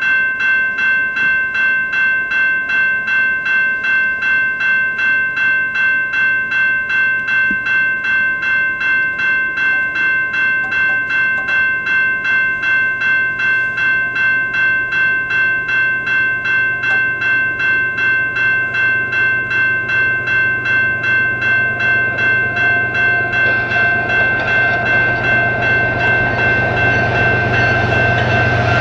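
Railway grade-crossing warning bell ringing steadily at about two strikes a second. From about 22 seconds in, the rumble of approaching Canadian Pacific diesel locomotives hauling a freight train rises under it.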